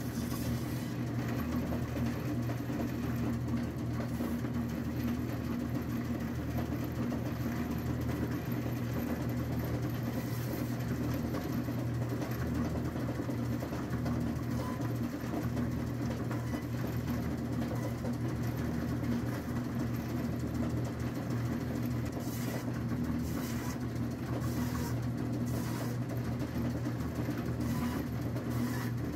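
Meat band saw running steadily with a low motor hum while its blade cuts through a frozen block of meat. A few brief higher rasps come near the end.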